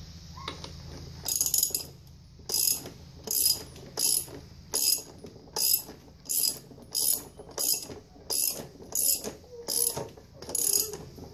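Socket ratchet wrench clicking in repeated short strokes, roughly one and a half a second, starting about a second in. It is turning the 38 mm magneto puller on a Can-Am Renegade/Outlander engine, working to draw the magneto rotor off the crankshaft.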